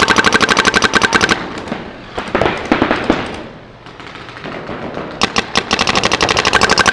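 Proto Reflex Rail paintball marker firing rapid strings of shots, about a dozen a second. The firing stops about a second and a half in, leaving a quieter stretch with scattered fainter pops, and picks up again in another fast string about five seconds in.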